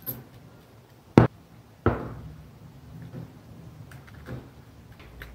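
Small plastic electrical parts handled on a desk: a sharp knock about a second in, then a duller knock a little later, with faint handling ticks between.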